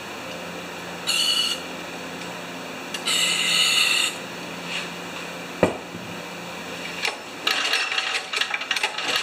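Two short hisses of an aerosol can of starting fluid being sprayed, the second about twice as long as the first, followed by a sharp knock and a quick clatter of small parts being handled. No engine is running.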